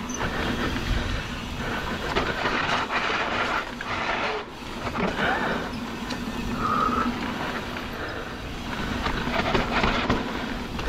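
Mountain bike rolling down a steep, loose dirt trail: knobby tyres skidding and scrabbling over the dirt while the Magura MT7 hydraulic disc brakes squeal on and off. The rider says the brakes are not holding on the steep pitch.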